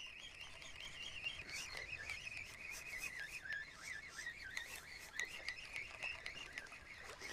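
Faint, continuous high-pitched chirping and trilling from small animals, with a few faint clicks scattered through it.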